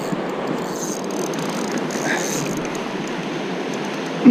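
Shallow river rapids rushing steadily past a wading angler in an even, unbroken rush of water. Right at the end comes one short, loud sound that drops in pitch.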